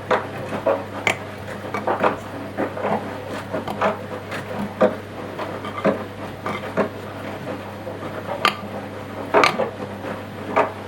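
Washing machine drum turning mid-wash, laundry tumbling with irregular clinks and knocks, likely zips or buttons striking the drum, over a steady low motor hum.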